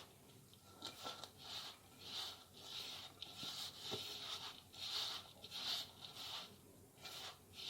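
Hands kneading stiff maida poori dough, faint and rhythmic, about two soft squishing strokes a second.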